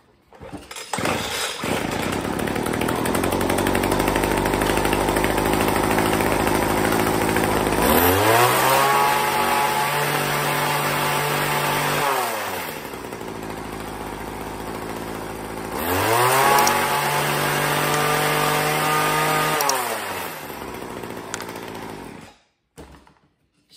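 Two-stroke gas hedge trimmer engine starting about a second in and idling, then revved up twice to high speed for about four seconds each before dropping back to idle. It shuts off near the end.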